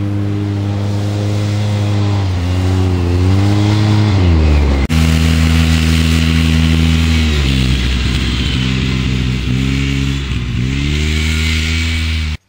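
Polaris RZR side-by-side's engine under throttle, its note held at a steady pitch and then dipping and climbing back several times as the throttle is lifted and reapplied. There is a sharp click about five seconds in, and the engine sound cuts off abruptly near the end.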